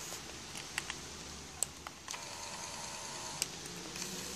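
Scattered small clicks of the Cosina 738 Super 8 camera's buttons being pressed, with a faint hum for about a second in the middle. The power zoom does not move: the electronic zoom is not working.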